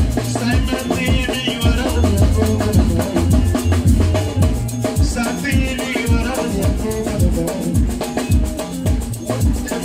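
Loud dance music with a steady drum beat, a strong bass line and busy, fast percussion.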